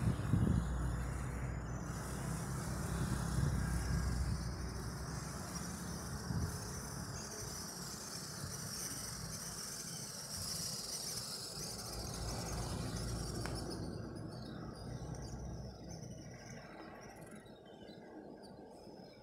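Outdoor road-traffic rumble that fades away over the last few seconds, under a steady high buzz that stops about two-thirds of the way through.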